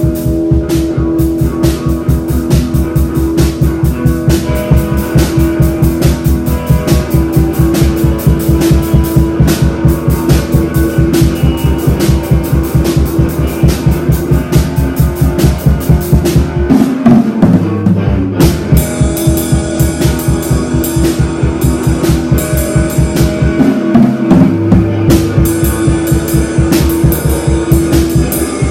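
Loud rock music with a drum kit and guitar, the drums hitting a steady fast beat of about four strokes a second under held guitar notes. The low bass drops out briefly twice, about two-thirds of the way through and again later.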